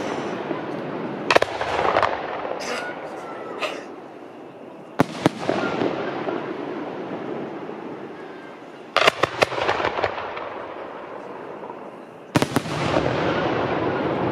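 Aerial fireworks shells bursting overhead: sharp bangs about one and a half, five, nine and twelve and a half seconds in, the one at nine a quick cluster of several. Each bang trails off in a long, slowly fading wash of rumble and crackle.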